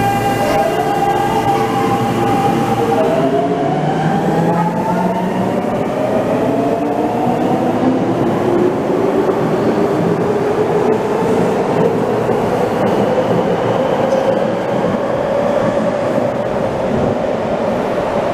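Electric subway train pulling out of the station, its traction motors whining in several tones that climb slowly in pitch as it picks up speed, over the rumble of wheels on rail.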